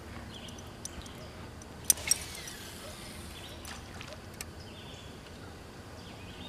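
A cast with a fishing rod and reel: two sharp clicks about two seconds in, then a brief faint hiss as line pays out, and a few lighter clicks later as the reel is worked, over calm lake ambience.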